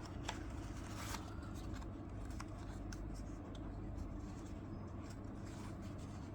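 Faint handling noise from a small vintage razor blade dispenser as its parts are fitted together: a few light clicks and soft scraping over a low steady hum.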